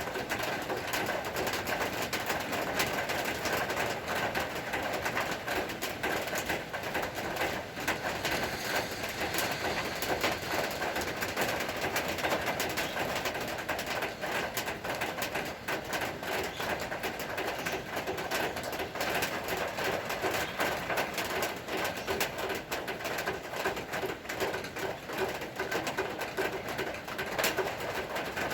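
Steady rain falling, a dense even patter of many small drops striking surfaces.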